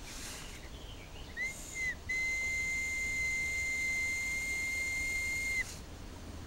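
Homemade willow whistle, made from green willow bark slipped back over a carved wooden plug, being blown: a short trial toot, then one long steady high note that stops abruptly.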